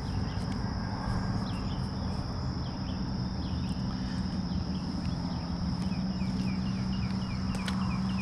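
Outdoor creekside ambience: a steady high insect drone, with a series of short falling chirps from about three seconds in and a low steady hum underneath.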